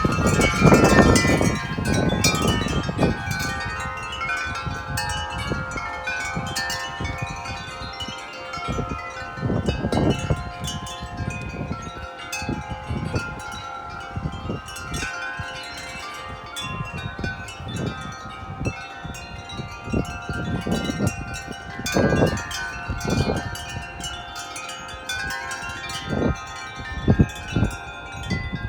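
Tubular wind chimes ringing continuously in strong gusting wind, many tones sounding over one another. Gusts hit the microphone as low rumbles, heaviest in the first couple of seconds and again about ten and twenty-two seconds in.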